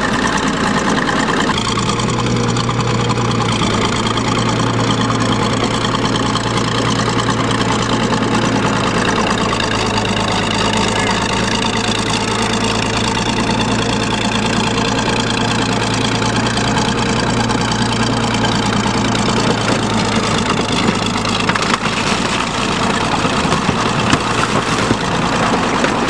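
Old crawler bulldozer's diesel engine running steadily, its note stepping up about a second and a half in as it is throttled up to drive onto a Honda Accord. Near the end the engine note drops and sharp cracks and crunches come in as the track starts crushing the car's body.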